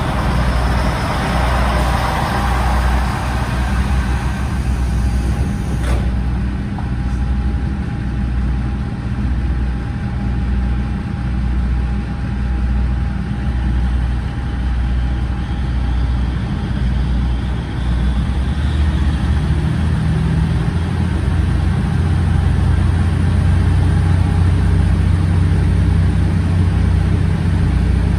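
A KiHa 47 railcar's original DMF15HSA six-cylinder diesel engine running under the floor, heard from inside the passenger cabin as the car moves. A broad rush of noise in the first few seconds comes with passing alongside another train. About two-thirds of the way in, the engine grows louder as it powers up.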